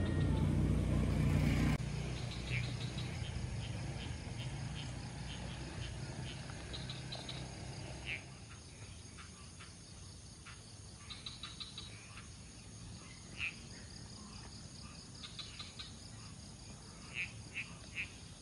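Background music that cuts off about two seconds in, giving way to a dusk chorus of insects and frogs: a steady high insect buzz with short chirping calls every few seconds, three in quick succession near the end, slowly fading out.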